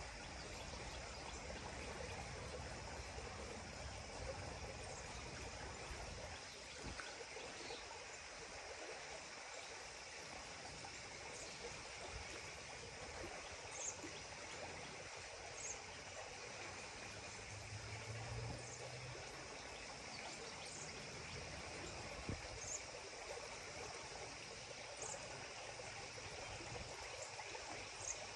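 Creek water running steadily, with faint short high chirps every couple of seconds.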